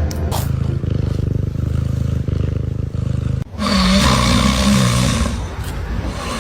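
A cat snoring close to the microphone: a low, rough, rapidly pulsing rattle. After an abrupt cut about three and a half seconds in, a louder, hissier rushing sound with a wavering low pitch takes over.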